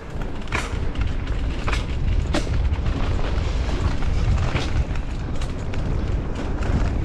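Mountain bike rolling fast down a dirt singletrack, with wind rumbling on the bike-mounted camera's microphone and tyre noise over the dirt. A few sharp clatters come from the bike jolting over roots and bumps.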